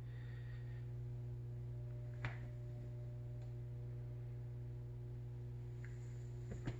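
Steady low electrical hum with a few faint steady tones above it, and one short click about two seconds in.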